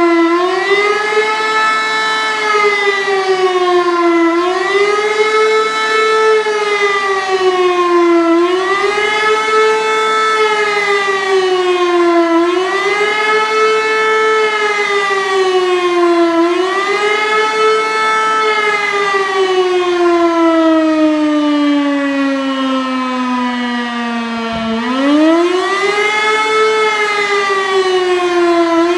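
Civil-defence siren sounding the public warning signal, a wailing tone that rises and falls about every four seconds. About eighteen seconds in, the pitch falls slowly for several seconds. About twenty-five seconds in, it rises sharply and the wailing starts again.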